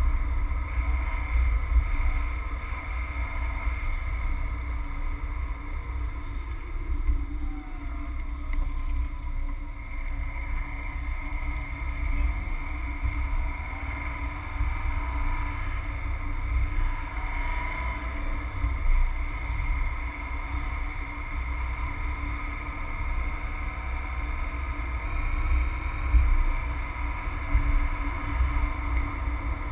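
Steady low engine and road rumble heard inside the cabin of a moving Subaru Forester, with a few faint rises and falls in pitch as it drives on.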